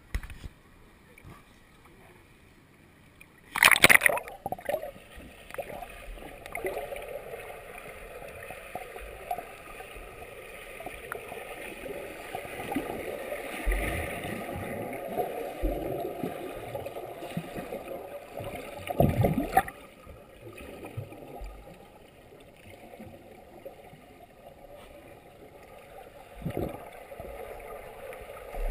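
Muffled underwater sound of a swimmer doing freestyle: water rushing and gurgling as the strokes go by, with a loud splash about four seconds in and another around nineteen seconds.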